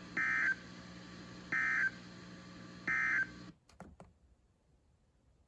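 Emergency Alert System end-of-message data tones: three short bursts of warbling digital tones about a second and a half apart, over a steady broadcast hum. The hum cuts off sharply after the third burst, followed by a couple of faint clicks.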